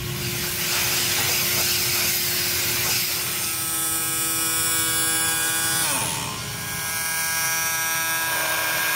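A small electric motor running with a steady whine and a hiss. Its pitch dips briefly about six seconds in.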